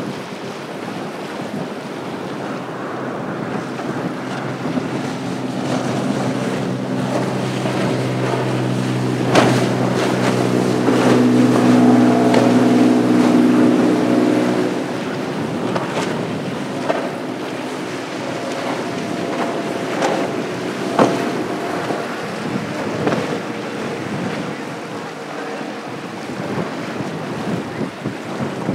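Center console motorboat engine droning as it runs past, building to its loudest about halfway through and then fading, over steady wind on the microphone and rushing water from the wake and surf. A few sharp knocks stand out, one about a third of the way in and two more later.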